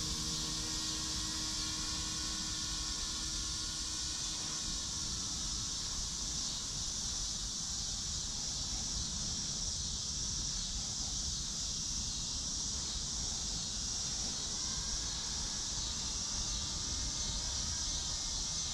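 Steady outdoor night ambience: a high, even insect chirring band and wind rumble on the microphone, with a faint wavering whine from the electric RC helicopter flying at a distance, fading in the first half.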